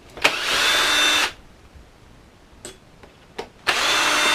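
Power screwdriver running in two short bursts of about a second each, backing out body screws, with small clicks of handling between.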